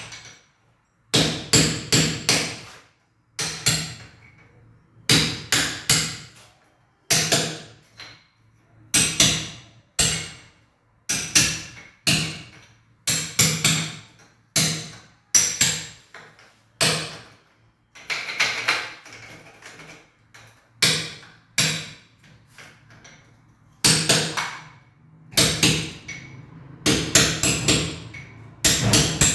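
Hammer blows in quick groups of two to four strikes, a group every second or two, each a sharp ringing knock, while a handle lock is being fitted into a wooden door.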